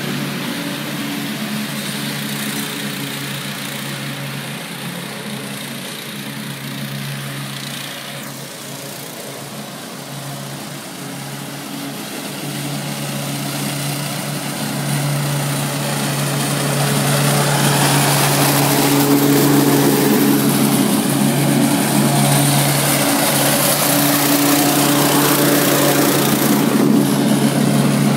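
Exmark Metro 48 walk-behind commercial mower's engine running steadily at mowing speed, with the blades cutting grass. It grows louder from about halfway through as the mower comes up close.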